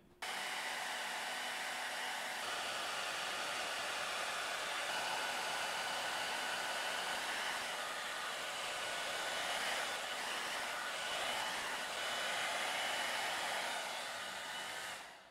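Handheld blow dryer running steadily, a rushing hiss of hot air with a faint whine, aimed at the edges of a cracked iPad screen to soften the adhesive holding the glass. It fades out near the end.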